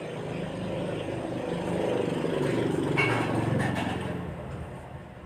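A motor vehicle going by, its engine sound swelling to a peak about three seconds in and then fading.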